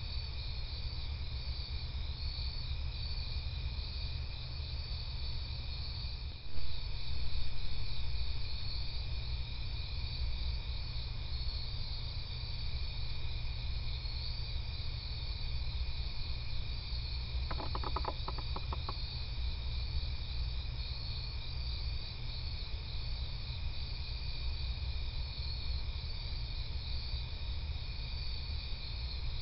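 Night insect chorus of crickets, steady high pulsing trills, over a low steady hum. A sudden thump about six and a half seconds in, and a short run of rapid clicks around eighteen seconds.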